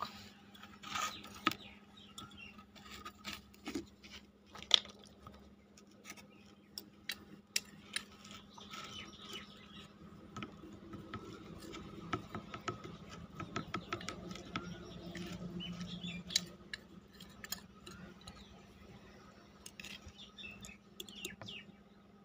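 Faint, scattered small clicks and light taps of a small clay pot being handled on a plate, over a steady low hum, with a soft murmur swelling about two-thirds of the way through.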